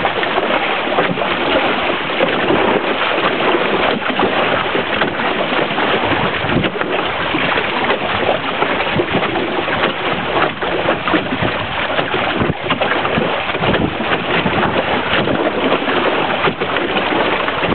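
Water rushing and splashing past an outrigger canoe's hull and float under sail, mixed with wind buffeting the microphone, a steady loud rush with irregular slaps and gusts.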